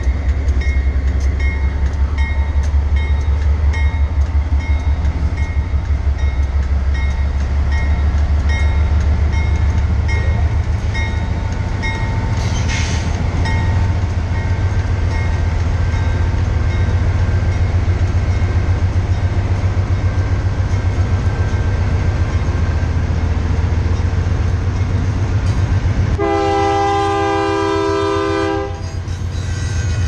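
GE AC4400 diesel-electric locomotive rolling slowly past at close range as the train starts off, its diesel engine working under load with a heavy low drone and a regular clicking. About 26 seconds in, a locomotive air horn sounds a chord of several notes for about two and a half seconds.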